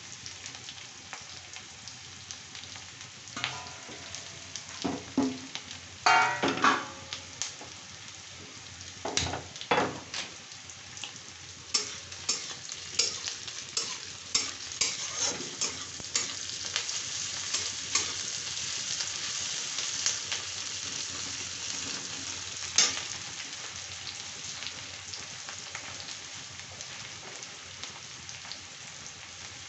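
Sliced onions sizzling in hot oil in an iron kadai, with a steady hiss and a metal spatula repeatedly scraping and clinking against the pan as they are stirred; the loudest scrapes come a few seconds in and around ten seconds in.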